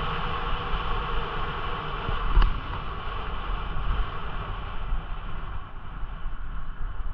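Wind noise on a moving camera's microphone over a steady rumble and a hum of several steady tones, with one sharp click about two and a half seconds in.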